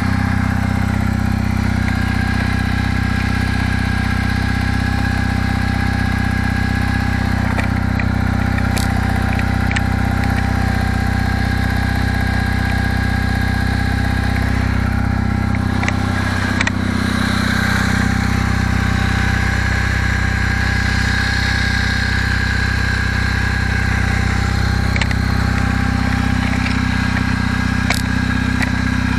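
Kawasaki W650 parallel-twin engine idling steadily from a cold start, running on the choke. While it is still cold it idles without the knock from the camshaft drive gear mesh that it develops once it reaches running temperature.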